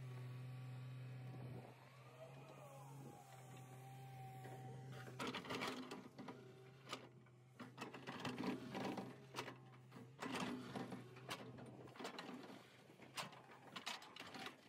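L&T-Komatsu PC200 hydraulic excavator: a steady engine hum with a brief rise and fall in pitch, then from about five seconds in its steel bucket scraping and crunching through stony soil, with repeated sharp knocks of rock against the bucket.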